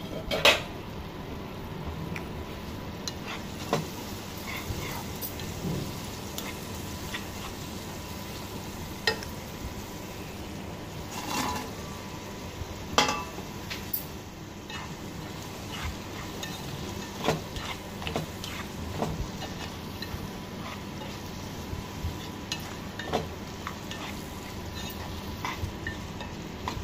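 Onion and tomato masala sizzling in a non-stick wok, with a spatula stirring and scraping through it and the beef pieces. Scattered sharp knocks of the spatula against the pan, the loudest just after the start and around the middle.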